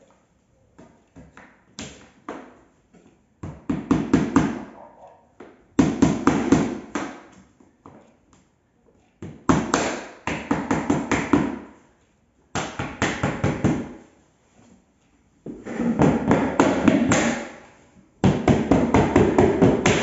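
Mallet tapping on a window frame in quick runs of blows, several a second, with short pauses between the runs.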